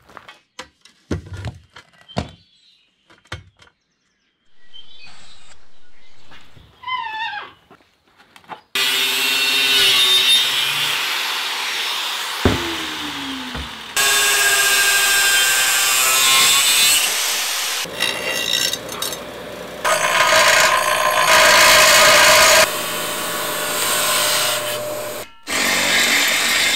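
A few scattered knocks, then an angle grinder cutting a steel bar held in a bench vice, in several short runs cut together; a little after twelve seconds one run winds down. Near the end a drill bores into the steel bar.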